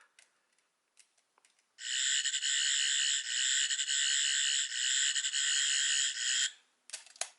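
Eleventh Doctor sonic screwdriver toy's fourth sound effect: a few button clicks, then a high, warbling, stuttering electronic buzz held for about five seconds that cuts off suddenly, followed by a few more clicks.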